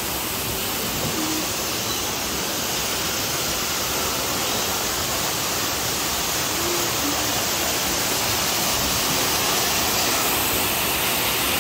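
Steady rush of falling water, an even hiss that swells slightly near the end.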